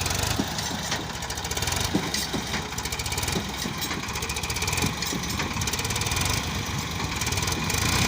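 Diesel engines of a backhoe loader and tractors running steadily, with a knocking diesel chug.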